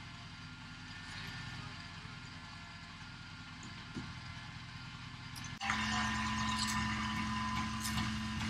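A boom truck's engine running steadily. About two-thirds of the way through it becomes louder, with a steady hum.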